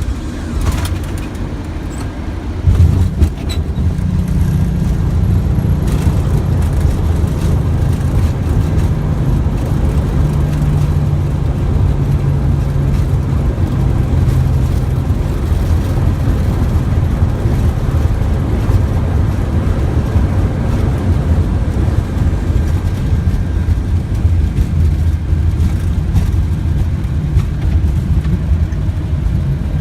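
Boeing 737 landing rollout heard in the cockpit: loud, low rumble of the jet's engines and wheels on the runway. The rumble rises sharply about three seconds in, and a low hum then sinks slowly in pitch over about ten seconds before the rumble settles steady as the airliner slows.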